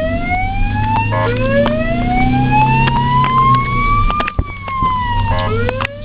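Ambulance siren wailing: its pitch climbs slowly for about three seconds, then falls, then breaks into short, quick rising sweeps near the end. Traffic hum runs underneath, with a couple of sharp clicks in the last two seconds.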